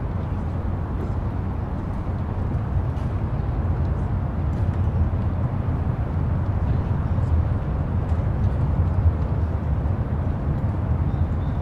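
Open-air city riverside ambience: a steady low rumble, with faint distant voices under it.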